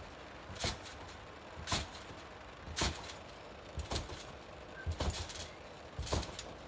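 Someone bouncing steadily on a trampoline: six landings on the mat, about one a second, each a thump with a bright rattle from the frame and springs.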